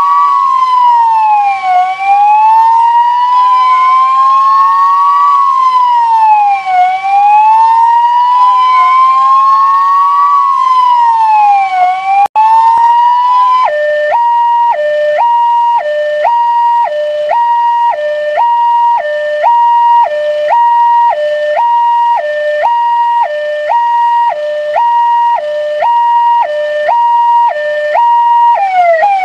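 Electronic emergency-vehicle siren. For about the first half, two overlapping slow wails rise and fall. It then switches to a two-tone hi-lo pattern, alternating about once a second.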